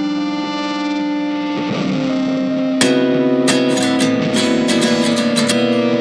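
Guitar-led background music: held chords at first, then a strummed beat comes in about halfway through.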